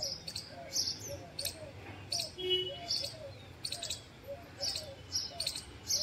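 Male house sparrow chirping over and over in short, high chirps, with a fainter, lower note repeating underneath.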